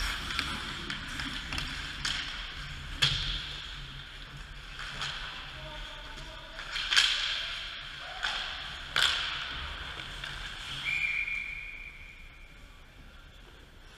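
Ice hockey play close to the net: sharp cracks of puck and sticks about three, seven and nine seconds in, over the scraping of skates on the ice. Near the end a referee's whistle sounds one steady blast of about two seconds, stopping play.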